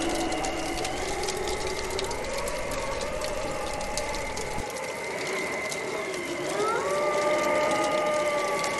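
Bonfire crackling with frequent small pops, under a howling wind that sounds in long tones, rising sharply about six and a half seconds in and then holding its pitch.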